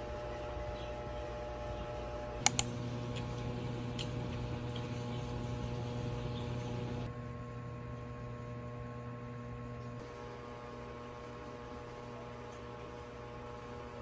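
Room tone with a steady electrical hum, its level and tone shifting slightly a few times. Two sharp clicks in quick succession about two and a half seconds in, with a few faint ticks after.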